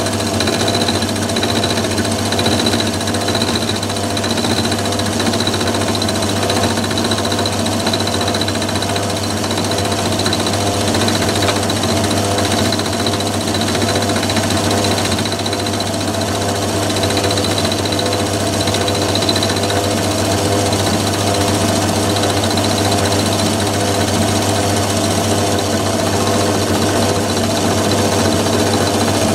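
Myford ML7 lathe running steadily while milling a slot in a component clamped to an angle plate on the cross-slide, the saddle advanced in small cuts; a constant machine sound with a thin high whine over it.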